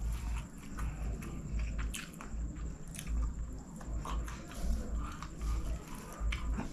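A person chewing a mouthful of chicken fried rice close to the microphone, a run of low chewing thumps with scattered small clicks, along with the soft squish of rice being worked by hand.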